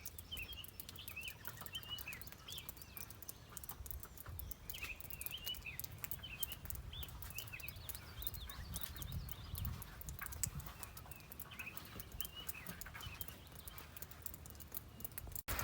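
Nature-sound ambience: small birds chirping in quick repeated notes over a bed of fine clicking and a low rumble. It breaks off abruptly near the end.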